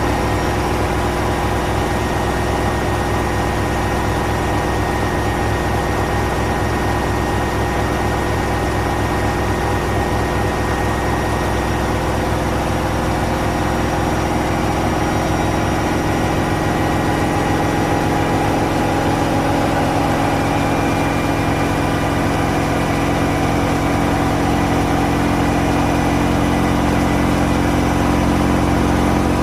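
Gorenje WPAM74SA1T washing machine running, a steady motor hum with vibration and a fast rhythmic flutter, growing slightly louder near the end.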